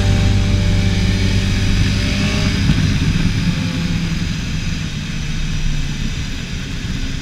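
Motorcycle engine running under way, its pitch easing slowly down through the middle as the bike slows, and the sound growing gradually quieter.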